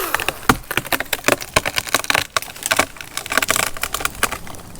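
Twigs and leafy branches cracking, snapping and rustling in a tree's canopy: a quick, irregular run of small cracks and clicks, right after a chainsaw has been cut through a limb and let wind down.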